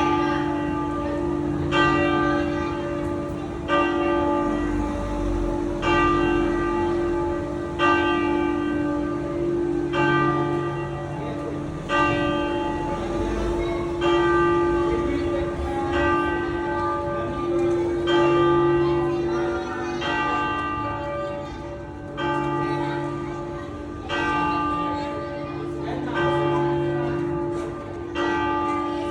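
Bells of Parma Cathedral ringing the noon peal. A fresh stroke comes about every two seconds, and each one rings on into the next over a deep, steady hum.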